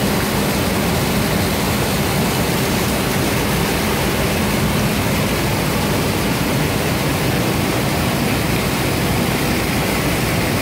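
Treated wastewater gushing from a pipe outlet and splashing onto a metal floor grating: a steady, loud rush of water.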